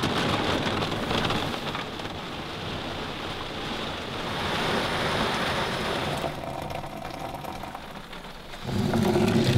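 Heavy rain pouring down in a steady, dense hiss, which fades after about six seconds. Near the end a louder, low-pitched humming sound comes in.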